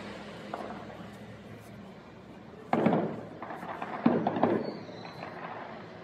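Aerial firework shells bursting: two loud booms about a second and a half apart, the second followed by a spell of crackling.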